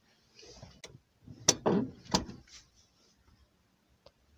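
Toyota Yaris hatchback's handbrake lever being worked by hand: a few sharp plastic-and-metal clicks and clunks, the loudest two about a second and a half and two seconds in, with a short rattle between them.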